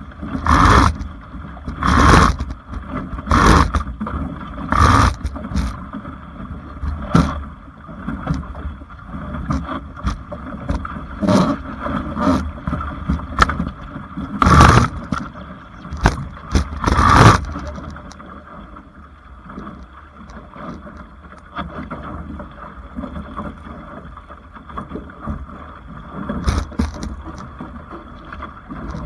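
Topper Sport 14 sailing dinghy moving fast under sail: water rushes along the hull and slaps against it in repeated loud splashes through the first eighteen seconds or so, then goes on more evenly. A steady low rumble of wind on the microphone lies under it.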